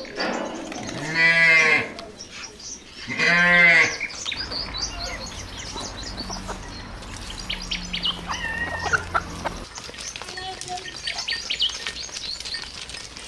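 Two loud, drawn-out animal calls about two seconds apart, each lasting about a second and rising then falling in pitch. A low steady hum follows for several seconds, with scattered short bird chirps.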